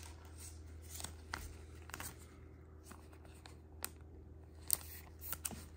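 Faint, scattered ticks and crinkles of a clear plastic card sleeve handled by gloved hands as a trading card goes into it, over a low steady hum.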